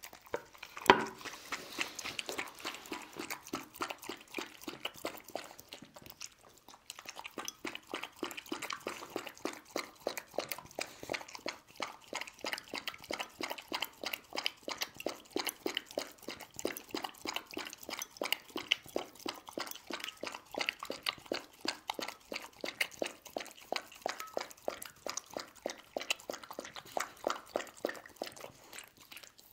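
A dog lapping the broth of rice-cake soup from a bowl: quick, even, wet tongue laps, several a second, with a sharper click about a second in and a short pause partway through.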